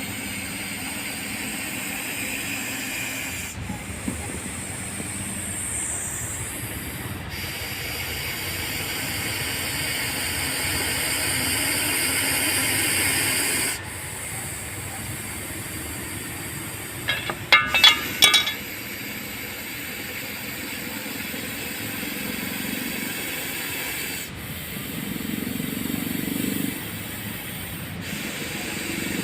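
Russell's viper hissing: a long, steady, breathy hiss that breaks off abruptly several times and resumes. A brief, loud, pitched sound cuts in a little past halfway.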